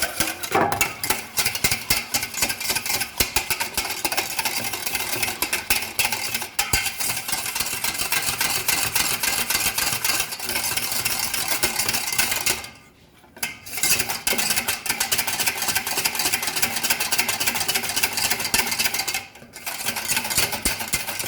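Curd being beaten in a bowl with a utensil: a fast, continuous clatter of metal against the bowl, stopping briefly about two-thirds of the way through and dipping again near the end.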